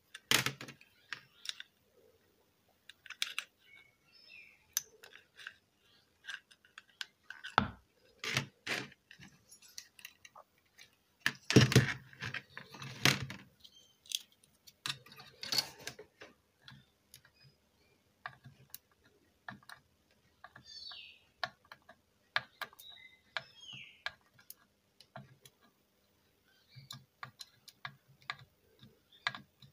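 Irregular clicks, knocks and clatter of a circuit board and hand tools being handled on a workbench, with louder clusters of knocks about 8, 12 and 16 seconds in.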